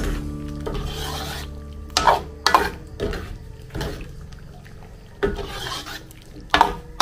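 A utensil scraping against the bottom of a cooking pot in a series of separate strokes as a thick beef caldereta is stirred. A steady low hum runs underneath.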